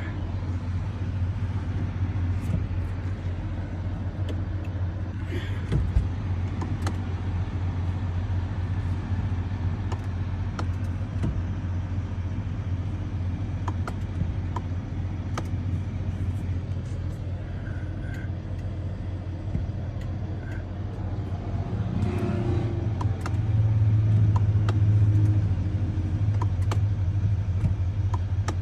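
A steady low vehicle rumble with a few faint clicks, swelling louder for a few seconds about 23 seconds in.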